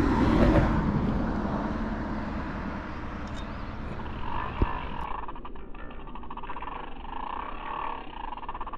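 Wind rumbling on the microphone, fading over the first few seconds. In the second half come a fast run of fine clicks and a faint wavering trill.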